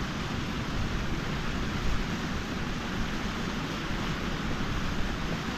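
Steady rushing of a mountain stream tumbling over rocks in a small cascade.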